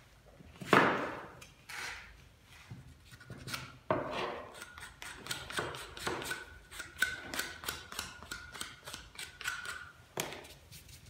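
A hard knock about a second in, then several seconds of quick, light taps and clicks, with a few heavier knocks among them.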